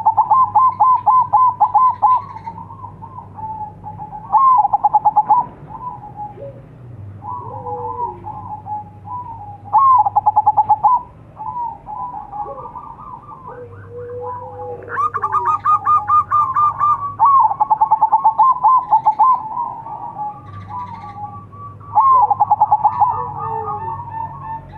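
Zebra dove (perkutut) cooing: repeated phrases of rapid, trilled notes, each about one to two seconds long and a few seconds apart, with softer calls between them.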